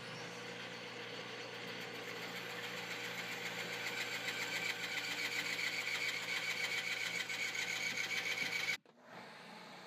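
Small electric power sander running steadily on wood, growing gradually louder, then stopping suddenly about nine seconds in, leaving a faint hiss.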